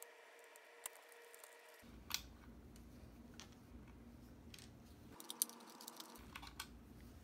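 Faint, scattered small clicks of pliers and metal hardware as the hex nut and washer are taken off the amplifier's input jack and set on the bench.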